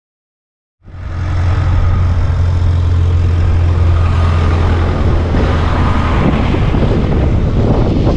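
A motor running steadily with a strong low hum under loud rushing noise, starting abruptly about a second in.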